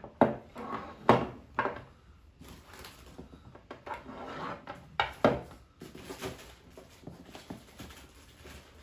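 Unboxing handling noise: a few sharp knocks and clunks as the welding machine and its cables are moved about, with a stretch of rustling packaging in the middle and a louder knock about five seconds in.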